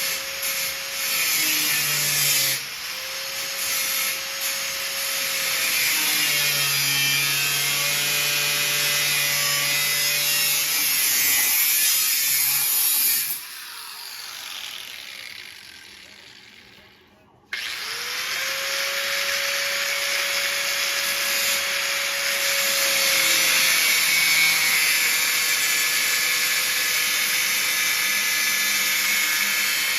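Electric hand-held power tool running and grinding on steel. It is switched off about 13 seconds in and winds down, then starts again with a rising whine a few seconds later and keeps running.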